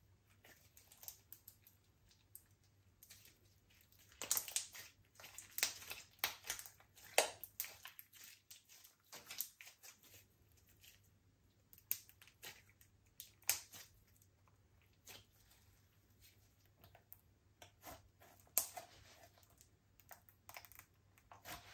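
Slime being worked by hand, giving irregular small sticky clicks and crackles, busiest in a spell a few seconds in.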